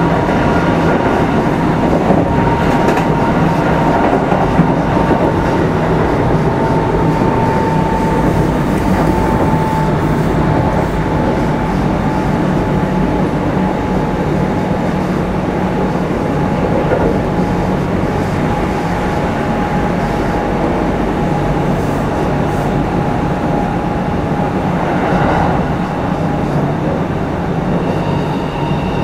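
Kintetsu 5211-series motor car running at speed, heard from on board: a steady rumble of wheels and running gear on the rails, with a steady whine that drifts slightly lower through the middle and rises again near the end.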